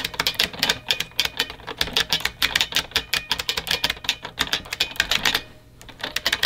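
Fast typing on a mechanical keyboard, keys clacking several times a second, with a pause of about a second near the end before the typing picks up again.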